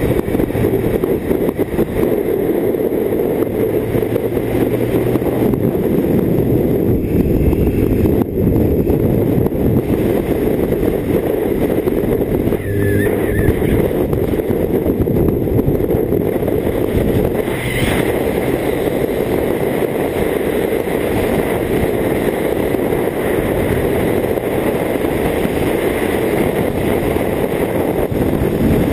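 BMW K1600GT touring motorcycle's inline-six engine running at road speed under steady, heavy wind rush on the bike-mounted camera's microphone.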